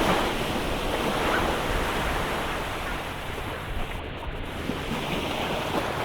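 Sea surf washing on a beach, a steady rushing noise, with wind buffeting the phone's microphone.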